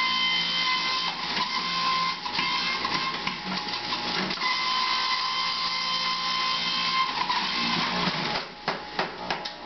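Jack LaLanne Power Juicer's electric motor running with a steady whine as orange pieces are pressed down the feed chute, its note faltering briefly a couple of times under the pusher. A few knocks near the end.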